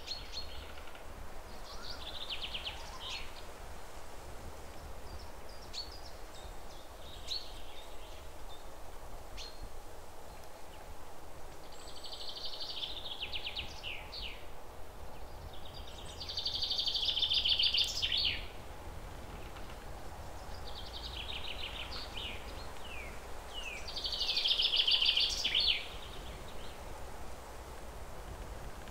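Birds singing in repeated trilled phrases with short falling chirps, two phrases louder than the rest, over a low steady hum.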